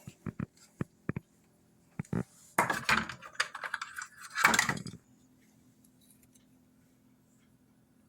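Hard objects being handled: a few sharp clicks, then about two and a half seconds of clattering and rattling, then only a faint steady low hum.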